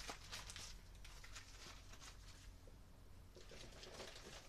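Near silence: room tone with faint rustling and small clicks of things being handled.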